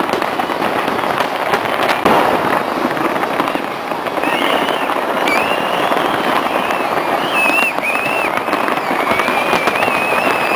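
Fireworks display: dense, continuous crackling and popping of bursting shells, with a sharp bang about two seconds in. A high wavering whistle runs over the crackle from about four seconds in.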